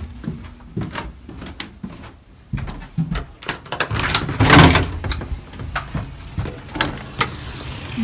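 House front door being unlocked and pulled open: a string of sharp clicks and knocks from the lock and handle, with a louder, longer rush about halfway through as the door comes open.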